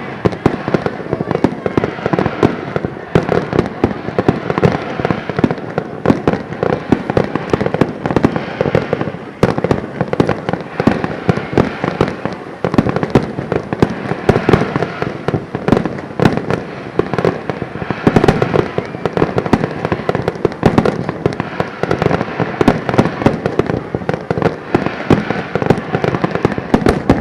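Starmine fireworks barrage: a dense, continuous run of bangs and crackles from shells bursting in quick succession. Picked up through a plastic rain cover on the camcorder's built-in microphone, which adds noise.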